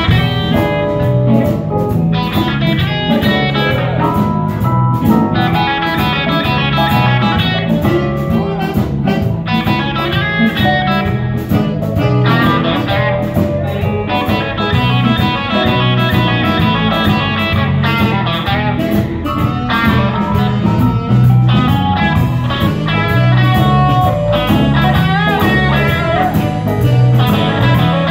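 Live band playing in a bar: electric guitar over a drum kit, with cymbals keeping a steady beat.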